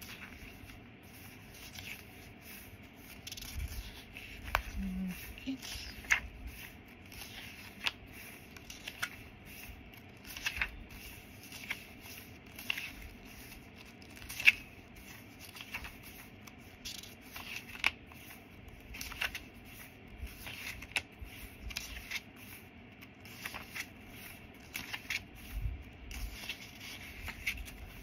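Paper pages of a handmade journal being turned and handled: crisp paper rustles and light ticks, coming irregularly about once a second.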